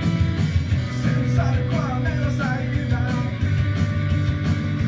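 Rock song playing, with a steady drum beat and guitar.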